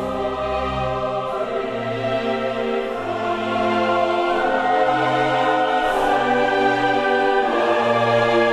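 Background music: a slow piece of sustained, choir-like chords over held bass notes, growing a little louder partway through.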